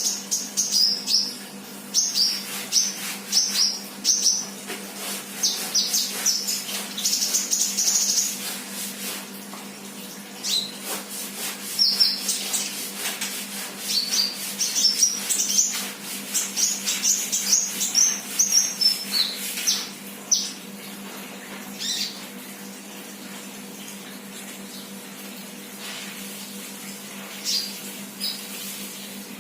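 Sunbird (kolibri) chirping in quick runs of short, high-pitched notes, dense for the first twenty seconds and then only a few scattered chirps. This is an untrained 'bahan' bird singing actively ('gacor'). A faint steady hum sits underneath.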